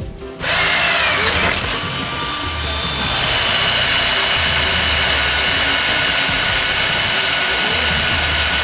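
Electric hand drill running under load as its bit cuts into an aluminum-rod weld bead on a thin aluminum tube: a steady whine that starts abruptly about half a second in, its pitch dipping briefly about a second in and then holding steady.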